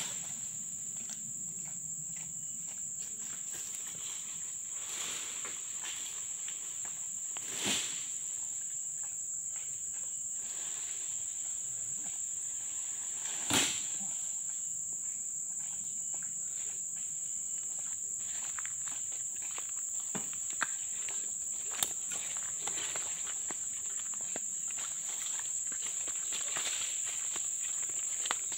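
Insects drone steadily at one high pitch throughout. There are two brief knocks, about 8 and 13 seconds in.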